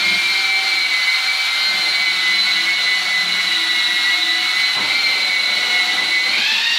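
Electric long-handled drywall sander running, a steady high motor whine as the spinning head sands the drywall; the pitch rises briefly near the end as the load changes.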